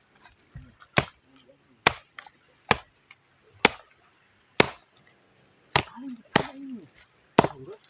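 A wooden stake being chopped to a point with a blade: eight sharp strikes, roughly one a second, over steady crickets.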